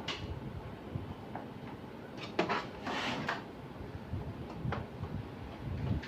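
A few sharp plastic clicks and knocks, with handling rustle, as the casing of a Canon LBP6000 laser printer is worked on; the loudest come about two and a half to three and a half seconds in.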